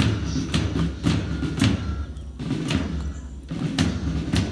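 Drums beating a steady march rhythm, with a sharp hit about twice a second over a low, continuous beat.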